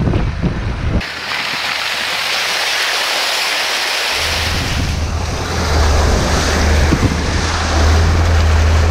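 Jeep driving off-road: a strong hiss of wind on the microphone and tyre noise, with a steady low engine drone coming in about four seconds in.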